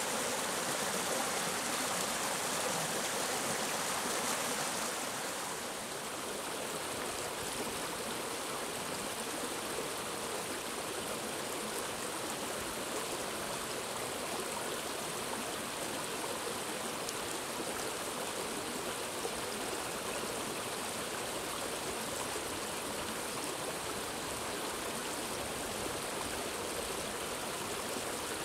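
Mountain stream flowing over rocks: a steady rush of water that softens a little about five seconds in.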